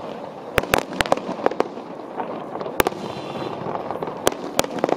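Aerial fireworks shells bursting in the distance: a string of sharp bangs at irregular intervals, several in quick succession in the first two seconds and a few more near the end, over steady background noise.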